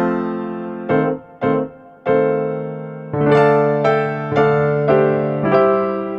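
Background music played on an electric piano: struck notes and chords, each one dying away, in a slow, gentle melody.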